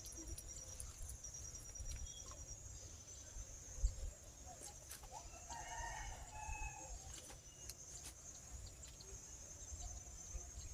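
Village chickens: a rooster crowing and hens clucking, the calls clustered around the middle, over a steady high-pitched insect drone. A single dull knock comes about four seconds in.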